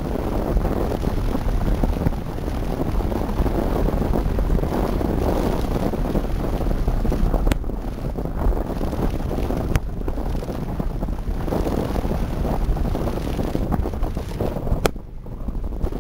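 Wind buffeting the microphone of a kite-borne camera: a steady, gusting low rumble, with three sharp clicks along the way.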